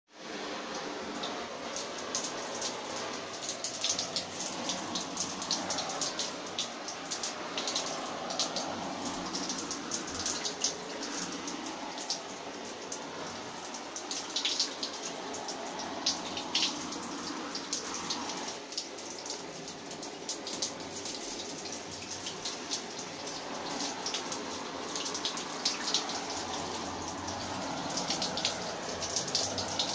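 Water spraying steadily onto a hanging down jacket, pattering and splashing on its waterproof shell, with many sharp droplet ticks.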